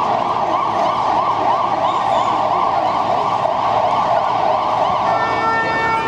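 Emergency vehicle siren sounding with a rapid rise-and-fall yelp, switching about five seconds in to a steady held tone.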